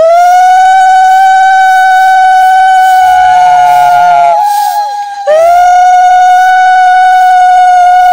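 Conch shell (shankha) blown in two long, steady, loud blasts, the first ending with a falling slide about four and a half seconds in, the second starting about a second later with a short rise.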